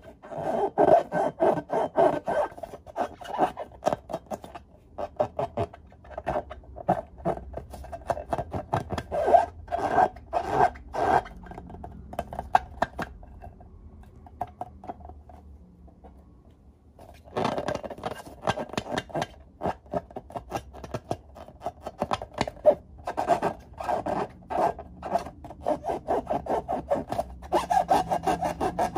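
Hands rubbing and squeezing filled latex balloons: a fast run of rubbing squeaks that stops for a few seconds midway, then starts again.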